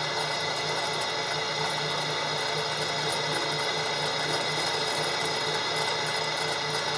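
Floor-standing drill press running steadily, its Forstner bit boring a flat-bottomed hole into a wooden block.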